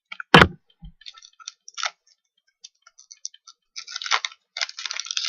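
Trading cards being handled: a sharp knock about half a second in, then scattered light clicks, and a stretch of crisp rustling and scraping of cards near the end.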